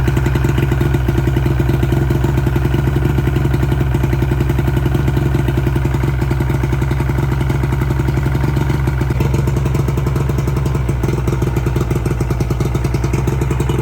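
Engine running steadily at constant speed, with an even beat of firing pulses.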